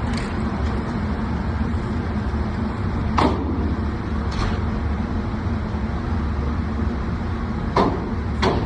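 Steady low drone of an indoor range's ventilation and air conditioning, with a few short, sharp knocks about three, four and a half, and eight seconds in.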